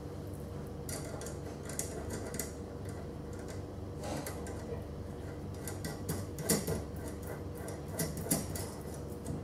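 Small metal clicks and clinks of a washer and nut being fitted and turned by hand on a steel threaded rod at a plastic bar clamp, with a few louder knocks in the second half.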